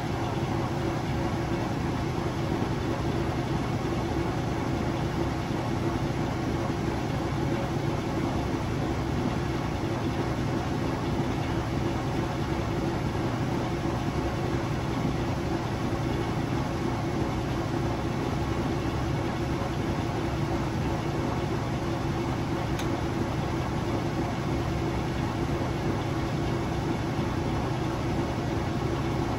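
Kenmore Ultra Fabric Care top-load washing machine running with a steady motor hum and whir that holds constant throughout.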